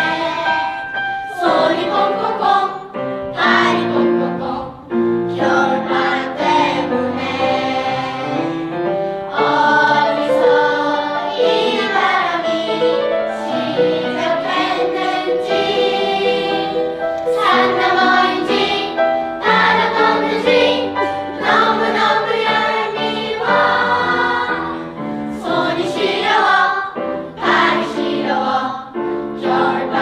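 Mixed choir of children and teenagers singing in harmony, several voice parts together.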